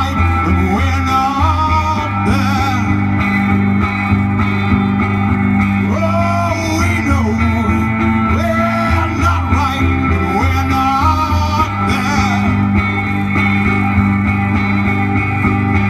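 Live rock song: a man singing into a microphone over his own amplified guitar, played through a stage PA. The sung phrases come and go over steady strummed chords and a low bass.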